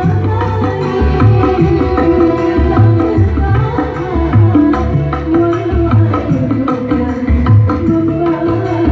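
Live dangdut band played loud through a PA sound system. Kendang hand drums keep a steady beat over a pulsing bass line.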